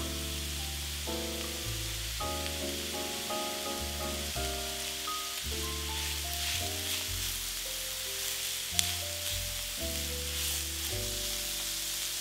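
Diced onion, grated carrot and red bell pepper sizzling in oil in a frying pan as a silicone spatula stirs them, under background music with a melody. One sharp click about nine seconds in.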